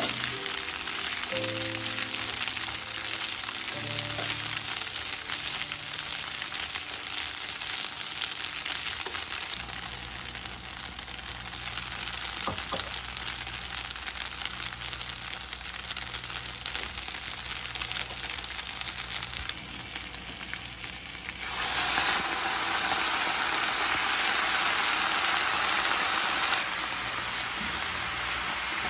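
Sliced five-spice tofu and leek sizzling as they are stir-fried in oil in a nonstick frying pan. The sizzling turns louder for about five seconds, two-thirds of the way through.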